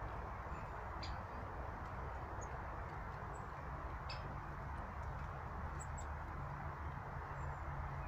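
Steady hiss of background noise, with a few faint, high bird chirps and two light clicks, about one and four seconds in.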